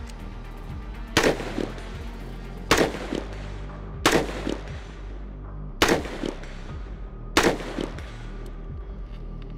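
Carbine firing five single shots at a steady pace, about one and a half seconds apart. Each shot is followed by a fainter second report about half a second later.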